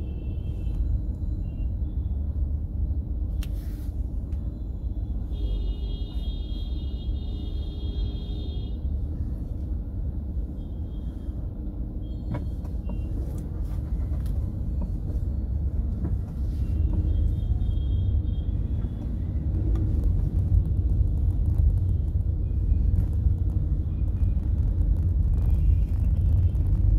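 Road traffic with a steady low rumble of engines and tyres, growing louder near the end, and vehicle horns honking over it: one long horn blast about six seconds in lasting about three seconds, then several short honks later.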